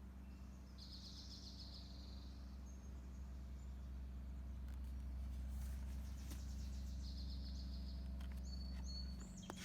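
Outdoor background with a steady low hum that stops near the end, and small birds giving two short trilled chirps, one about a second in and another about seven seconds in.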